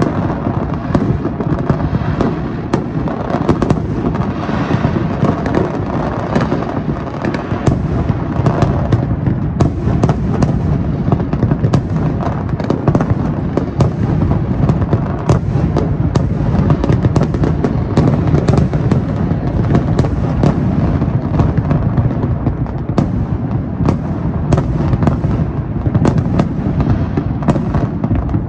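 Large fireworks display at full intensity: aerial shells bursting in a dense, unbroken barrage of booms and crackles that overlap without a pause.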